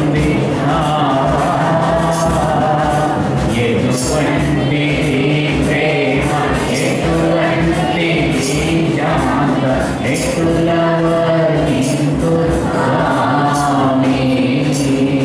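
A man singing a Telugu Christian hymn into a microphone, with instrumental accompaniment and a steady percussion beat.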